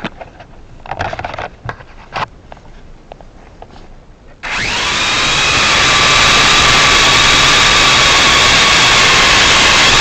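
Scattered light knocks and clicks, then about halfway through the motors and propellers of an MJX X101 quadcopter drone spin up suddenly. They settle into a loud, steady whine with several pitched lines.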